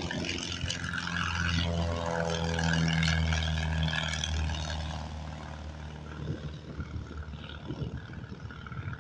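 Piper PA-28 light aircraft's four-cylinder piston engine at take-off power as the plane climbs out past. Its drone is loudest a few seconds in, drops in pitch, then fades as it flies away, with wind buffeting the microphone near the end.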